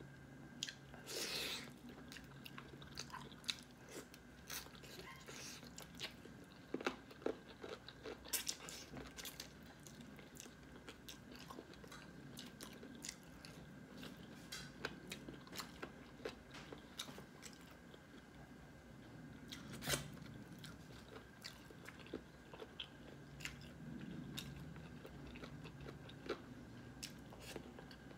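Close-up chewing and biting of a person eating chicken curry with rice, with many short, irregular wet mouth clicks.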